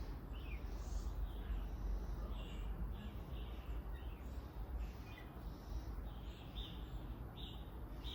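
Small birds chirping in many short, high calls, scattered irregularly, over a steady low background rumble.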